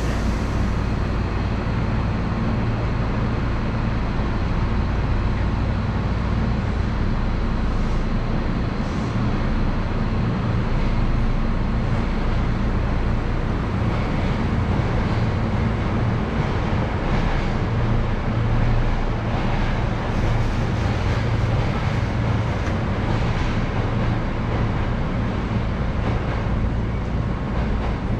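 Hankyu 7000 series electric train standing at a station: a steady hum from its onboard equipment with a few even low tones, and no rising or falling motor whine.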